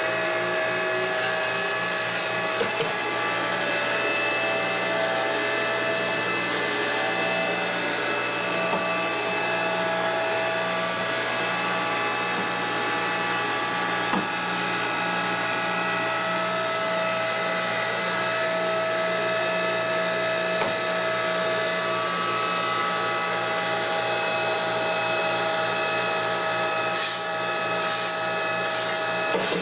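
StepX-3000 CO2 compressor running steadily under pressure during a supercritical extraction run: a steady whine of many tones over a regular low pulsing. A few light clicks near the end.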